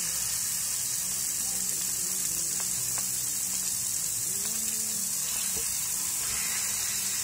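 Pork chops sizzling steadily in hot olive oil in a cast iron skillet, a constant high hiss.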